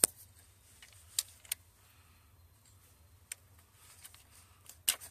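Scattered sharp metallic clicks and clinks of tools and car parts being handled: about five separate ticks at uneven intervals, the loudest at the very start and near the end.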